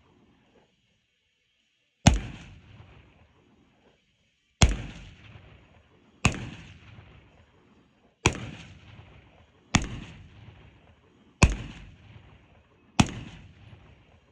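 Seven gunshots fired one at a time, 1.5 to 2.5 seconds apart, each with a long echoing tail.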